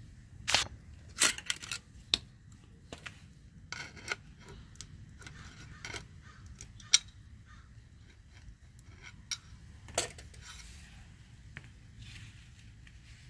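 Irregular metallic clicks, taps and light scrapes of a screwdriver and small parts against the aluminium housing of a Porsche 996 Turbo spoiler actuator as it is fitted back together by hand. The loudest click comes about seven seconds in.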